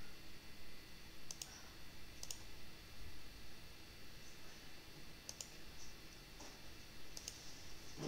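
A few faint computer mouse clicks, some in quick pairs, over a steady low hum.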